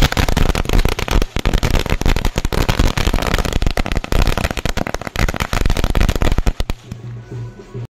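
A string of firecrackers going off on the ground: a rapid, irregular run of sharp bangs that thins out near the end.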